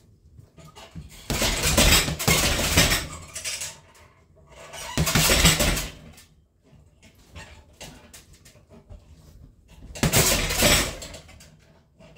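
Gloved punches landing on a hanging heavy bag in three fast flurries, each a quick run of thuds, with the bag's chains and steel stand clinking along; lighter single hits fall between the flurries.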